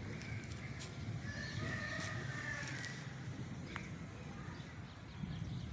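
Black kite giving a long whinnying call about two seconds in, followed by a short falling chirp, over a steady low rumble of wind on the microphone.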